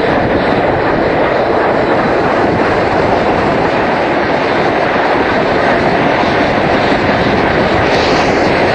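Passenger train running at speed, heard from an open carriage window: a loud, steady rumble of wheels on rails as the train passes through an underground station.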